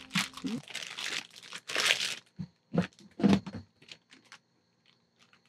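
Plastic grow bag crinkling as a bagged mushroom block is handled, followed by a few short knocks of a clear plastic storage tub and its lid being moved.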